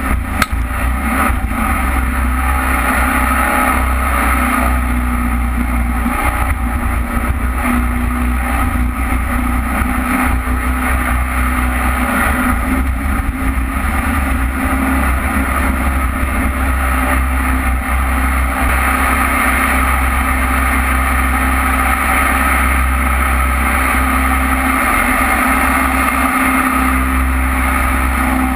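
Jet boat engine running at speed, with the rush of water spray and wake. One sharp knock about half a second in.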